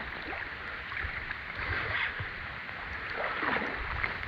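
Steady rushing of water and falling rain, with scattered low thumps.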